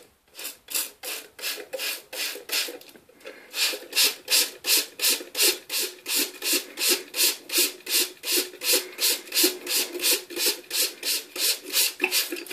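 A small hand pump worked over and over, pumping water through: a rhythmic hissing stroke, slower and fainter for the first few seconds, then louder at about three to four strokes a second.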